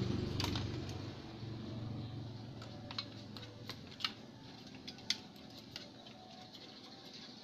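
Scattered light clicks and taps from handling and cleaning inside an opened CRT television. A low hum fades out over the first two seconds.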